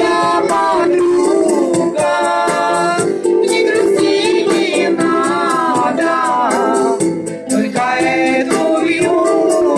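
A song: a voice singing a wavering melody over a held accompaniment chord, with a light, regular ticking percussion on top.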